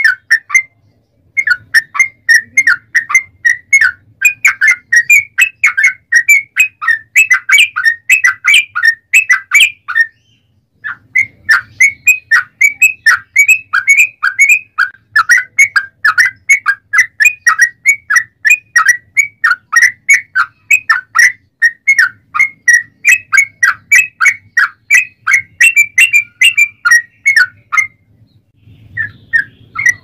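Yellow-vented bulbul (trucuk) singing a long run of quick, rolling chirps, several notes a second, with brief breaks about half a second in, near the middle and near the end.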